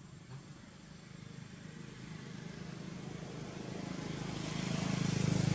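A motor vehicle's engine hum with a hiss above it, growing steadily louder and loudest near the end.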